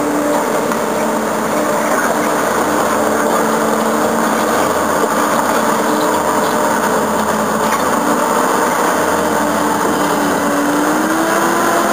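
Tracked dozer turning in place: a steady mechanical whine of a few tones over the rattle of the tracks, the pitch climbing a little near the end.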